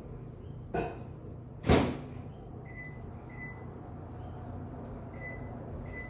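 Two short knocks about a second apart, the second louder, then four brief high chirps, over a steady low hum.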